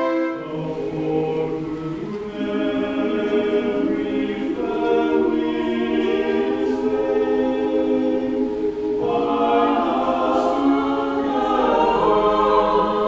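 Small mixed choir of men's and women's voices singing a cappella in parts, swelling fuller and brighter about nine seconds in.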